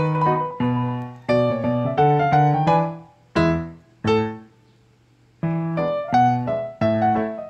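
Background piano music: single notes and chords struck and fading, with a pause of about a second a little past halfway.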